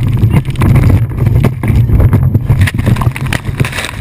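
Fountain powerboat running flat out, heard from on board: a loud, steady low engine drone mixed with water noise and repeated short thumps as the hull slams across the waves. Near the end the boat hits a large wake and is thrown violently about.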